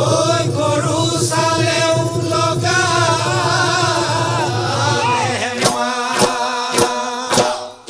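Bihu folk music: a male voice singing over a steady held drone, joined about five seconds in by dhol strikes at roughly one and a half a second. The music drops off sharply just before the end.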